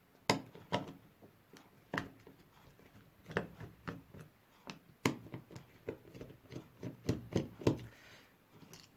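Irregular sharp clicks and light knocks of soldering irons being handled, their plastic handles and metal barrels tapping and clicking as they are worked open.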